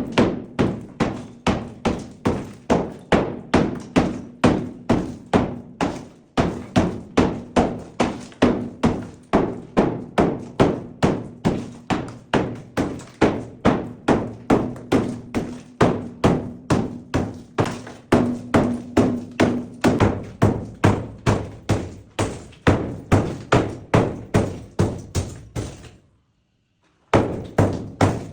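Steady, rapid taps of a tool striking zellige tile, about two to three strikes a second. They pause for about a second near the end, then start again.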